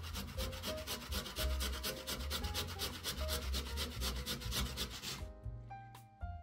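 Peeled raw potato grated on a stainless steel box grater: fast, even rasping strokes, about seven a second, stopping about five seconds in.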